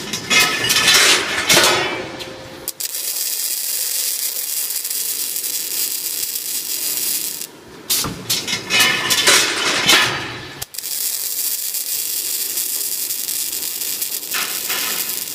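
Automatic double-end scaffolding welding machine working two cycles: a few seconds of mechanical clatter as it moves, then several seconds of steady welding hiss each time.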